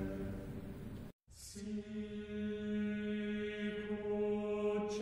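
Background music of slow, sustained chant-like vocal notes. A held note fades out and the sound drops out completely for a moment about a second in, then a new long, steady note begins.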